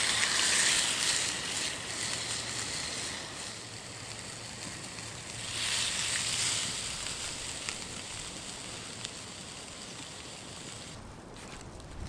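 Beef stock poured into a hot stone bowl (dolsot) of browned beef and vegetables, hissing and sizzling loudly at first and easing off, with a second swell of sizzle about five and a half seconds in. A few faint crackles come from the campfire.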